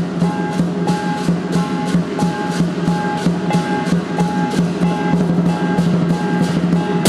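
Southern lion dance percussion: a large lion drum beating steadily under repeated metallic clashes that ring briefly, in a driving even rhythm.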